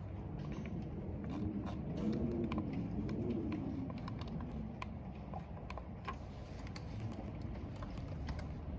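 Computer keyboard being typed on, with irregular keystroke clicks over a steady low rumble of wind and rain. In the first half a low wavering moan swells and fades.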